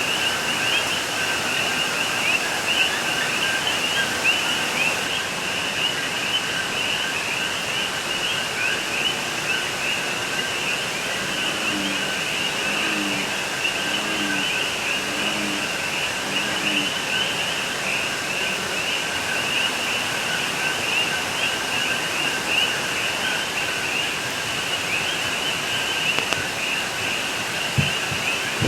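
A dense night chorus of Puerto Rican coqui frogs: countless overlapping two-note "co-qui" calls, each rising sharply on the second note, merging into a loud, constant din.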